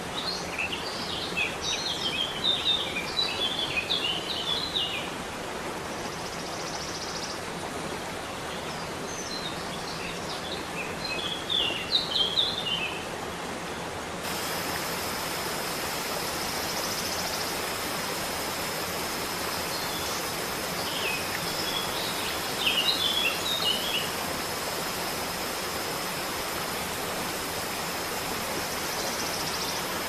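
Steady rushing water of a waterfall, with birds chirping in three short bursts of song, the loudest about 2 seconds in, 12 seconds in and 23 seconds in.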